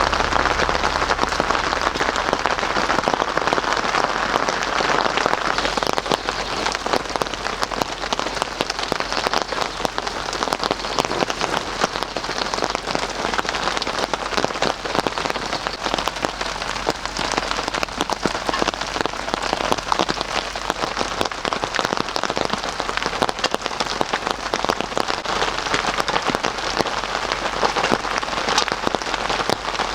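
Steady rain, a dense, even patter of countless drops striking a surface.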